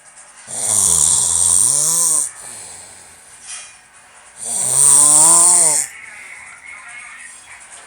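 Domestic cat snoring in its sleep: two long snores about four seconds apart, each a hiss with a pitched tone that dips and then rises.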